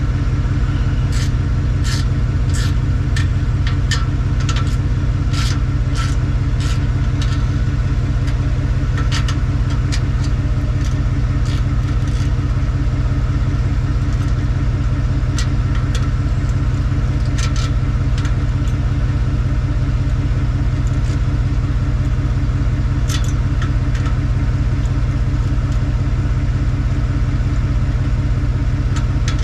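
Car engine idling steadily with a deep, even exhaust rumble. Scattered sharp clicks come over it, thick in the first dozen seconds and only now and then after.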